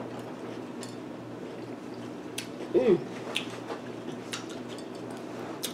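Quiet mukbang eating and drinking sounds: a few small mouth clicks and a plastic juice bottle being drunk from, over a steady low hum. A brief hummed "mm" comes about three seconds in.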